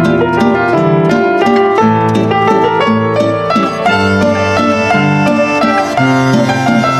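Instrumental background music: a melody of plucked string notes moving steadily from note to note, with no pause.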